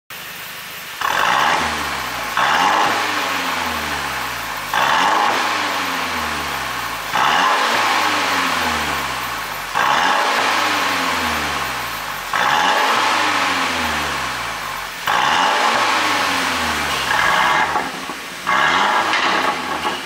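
Mercedes-Benz X253 GLC300's 2.0-litre turbocharged four-cylinder engine revved in place from idle in about ten sharp throttle blips, the revs sliding back down after each, the last few coming in quicker succession. The exhaust is heard through an ECU tune made to give pops and crackles on the overrun.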